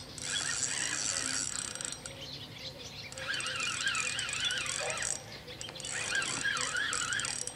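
Spinning reel on a feeder rod being wound in three spells with short pauses between, a whirring gear sound as a hooked fish is reeled in.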